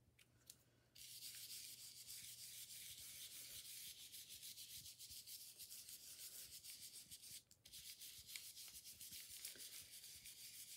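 Round stencil brush scrubbed quickly over a plastic stencil, working white paint onto paper: a faint, steady scratchy hiss that breaks off briefly about seven and a half seconds in.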